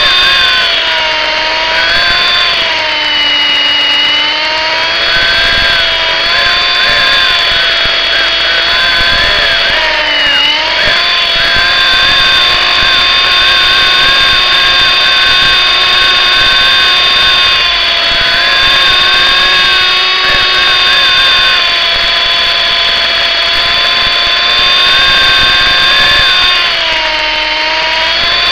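MJX F45 RC helicopter in flight: the electric motor and rotor give a steady high whine. The pitch dips and recovers three times, near the start, about ten seconds in and near the end, as the throttle changes.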